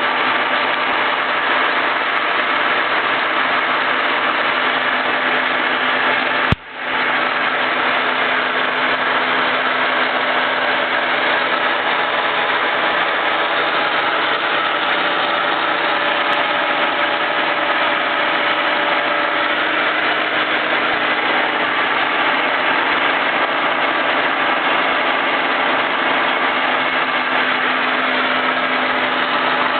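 Tos Trencin SN 40 B lathe running steadily with its 7.5 HP main motor and spindle turning, a constant machine hum with a few steady tones through it. A short click and drop in the sound about six and a half seconds in.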